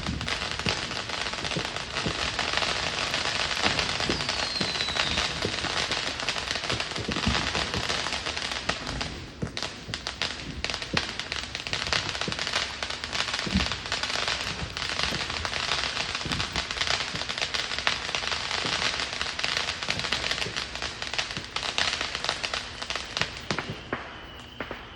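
Consumer fireworks going off in a dense, rapid run of crackling pops, with a brief falling whistle about four seconds in; the crackling thins out near the end.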